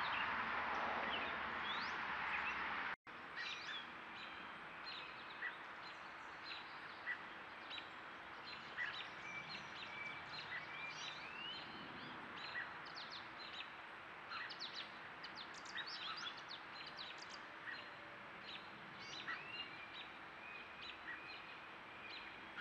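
Small birds chirping and calling in many brief, scattered notes and short whistles, over a faint steady hum. The first few seconds are a louder even hiss that ends at a sudden cut.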